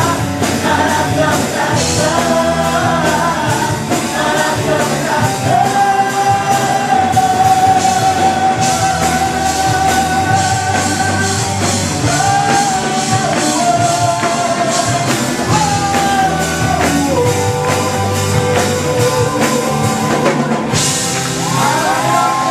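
Live band performing a Christian worship song: drums, bass and singing voices holding long notes.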